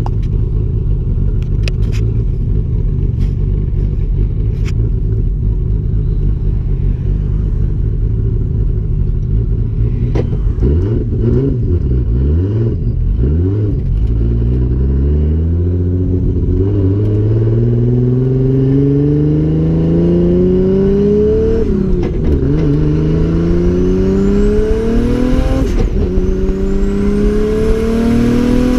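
Car engine and PGS R154 dog-box gearbox heard from inside the cabin. The engine runs fairly steadily at first with a few sharp clicks, then the car pulls away and accelerates through the gears. The engine pitch climbs and then drops sharply at each upshift, which is made without the clutch, with a faint high whine rising with the revs.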